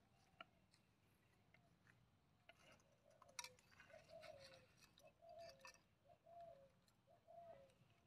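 Faint dove cooing: a run of about five short coos, roughly one a second, with a couple of faint clicks among them.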